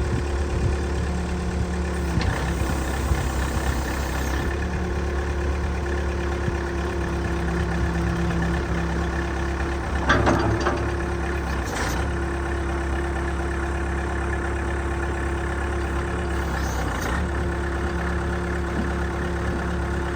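Loader backhoe's engine running steadily, shown for its running condition, with a brief clank about ten seconds in.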